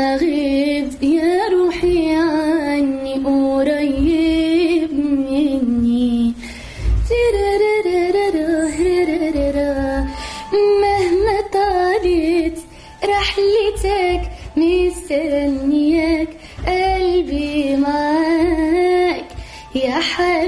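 A woman singing solo in long melodic phrases, her voice sliding and ornamenting between notes, with a few short breaks for breath.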